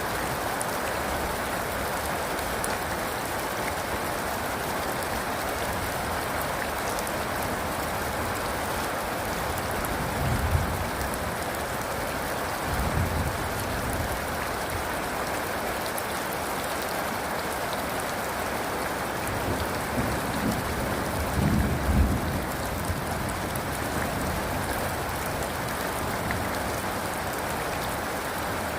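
Steady rain falling, with low rumbles of thunder swelling several times: briefly about ten seconds in, again a few seconds later, and longest around twenty to twenty-two seconds in.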